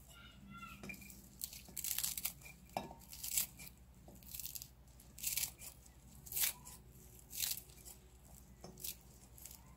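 Kitchen scissors snipping through a handful of fresh celery leaves: about a dozen short, sharp cuts at an irregular pace.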